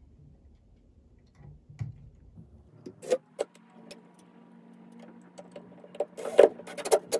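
Cordless DeWalt brushless drill driving a screw into a steel junction box. A few handling clicks come first, then the motor runs steadily from about three seconds in, with loud knocks and clatter near the end.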